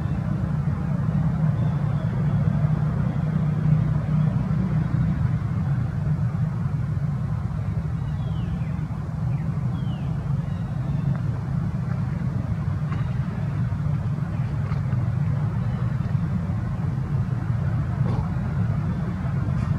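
Steady low rumble, with a few faint, short high squeaks about eight to ten seconds in.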